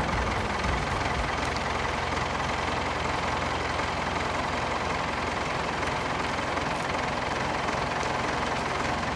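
Old farm tractor's engine idling steadily, with a fine regular low pulse.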